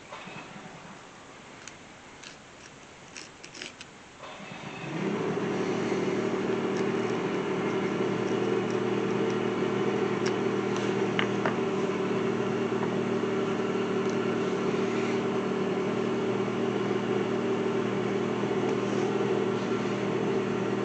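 A few light clicks of handling, then about four seconds in a motor switches on and runs with a steady, even hum.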